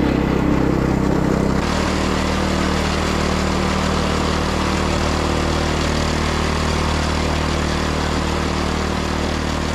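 Steady running of an engine or motor, a constant low hum with noise over it; the sound changes abruptly about a second and a half in, as at a cut, then runs on steadily.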